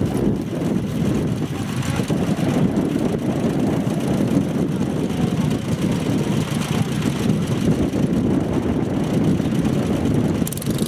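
Engine of a walk-behind tractor (motoculteur) running steadily, a continuous low rumble.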